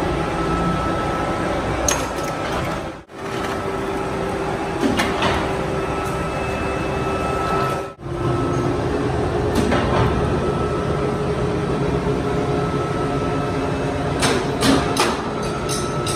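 Workshop machinery running steadily, with a couple of held tones, dropping out abruptly twice; a run of sharp metallic clicks and knocks comes near the end.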